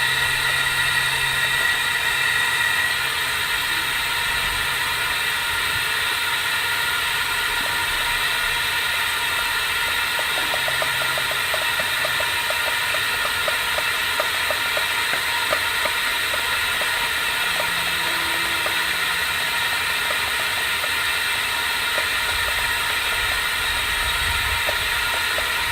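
Steady hiss of compressed air filling a 6-inch UV spot-repair packer at its second-stage pressure of about 8 psi, with faint rapid ticking through the middle stretch.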